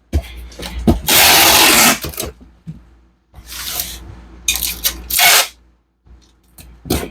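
Packing tape pulled off a tape dispenser onto a cardboard box in several long strips, the longest about a second in, with short handling knocks between them.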